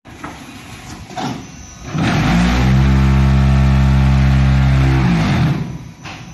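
Vibration table of a TPM10000G concrete block machine. About two seconds in, its servo vibration motors spin up to a loud, steady hum that rises in pitch as they come up to speed, hold for about three seconds while compacting the concrete in the mould, then wind down with a falling pitch. Before that there is quieter machine clatter with a single knock.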